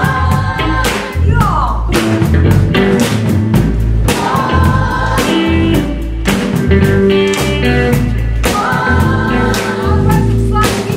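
Live rock band playing a song, with a drum kit, electric bass and electric guitar and a woman singing lead.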